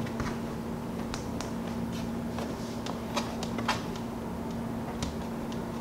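Plastic bottom cover of an HP 745 G3 laptop being pressed back onto the chassis by hand, its clips snapping into place in a series of small, sharp clicks.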